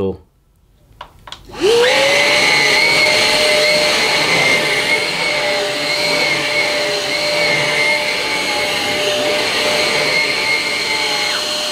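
Numatic Quick cordless stick vacuum cleaner switched on, its motor whining up to speed about two seconds in, then running at a steady pitch as it is pushed over the carpet. It is switched off just before the end, the whine dropping away.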